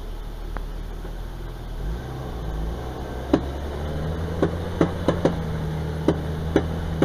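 Off-road vehicle engine running at a steady low pitch, which steps up slightly about two seconds in. Over it come about seven sharp, irregularly spaced knocks, starting about three seconds in.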